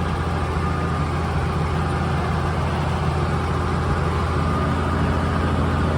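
Tractor engine running steadily while pulling a planter across the field, a constant low drone with a faint steady whine above it.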